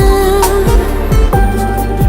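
Background music: an instrumental passage of a Hindi song, with held synth notes and deep kick-drum hits that drop in pitch, several in two seconds.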